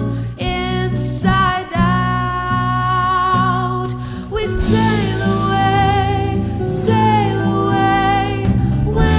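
Background music: a song with a singer holding long, wavering notes over a steady bass and chords.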